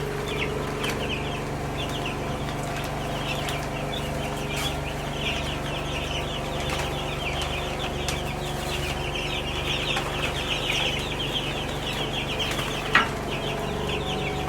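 A pen of broiler chicks peeping continuously, many short high peeps overlapping, over a steady low hum. A single sharp click about 13 seconds in.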